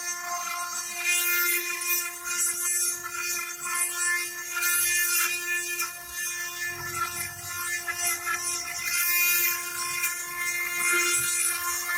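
Spindle of a CNC stone-engraving machine running with a steady high whine. Over it comes a hiss that swells and fades as the bit grinds into the stone.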